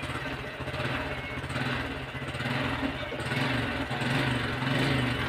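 Honda XRM 125 fuel-injected single-cylinder four-stroke motorcycle engine running on a test run just after an overhaul, its level rising and falling a little.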